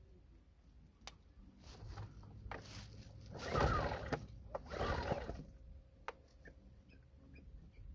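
Recoil pull-starter of a Kraton IGG-1000 inverter generator being yanked: a couple of short tugs, then two full pulls of the cord about a second apart, without the engine starting.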